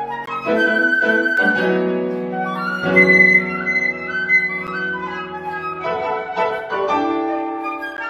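Flute and piano playing a contemporary classical chamber piece, the flute holding long sustained notes over changing piano chords.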